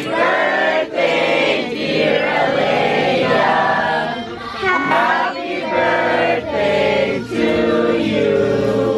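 A group of people singing a birthday song together, men and women in chorus, in held notes that change about once a second.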